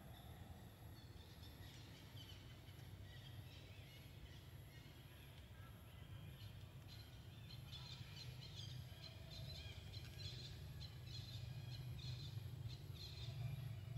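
Faint, quick bird chirps, scattered at first and growing busier and louder through the second half, over a steady low rumble.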